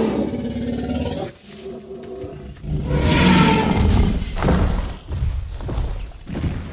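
Film sound of a Tyrannosaurus rex roaring: a roar fades out about a second in, and a second loud roar comes about three seconds in, followed by heavy low thuds.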